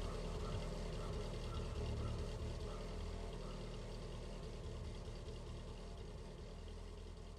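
A car engine rumbling low and fading steadily away, with a faint ticking of about two or three a second in the first few seconds.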